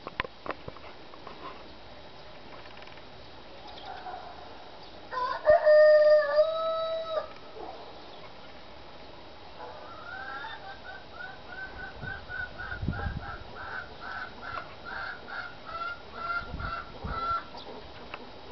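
A rooster crows once, about five seconds in, a single drawn-out call and the loudest sound here. From about ten seconds a chicken gives a long run of quick, repeated clucks, roughly three a second.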